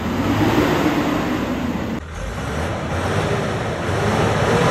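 Heavy diesel truck engines running as the trucks drive slowly over rough off-road ground. The sound changes abruptly about two seconds in, from one truck to a borewell drilling rig truck.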